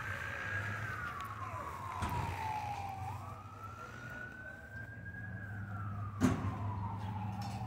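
Emergency-vehicle siren wailing in long, slow sweeps: its pitch falls, rises, then falls again, over a steady low hum. A single sharp click about six seconds in.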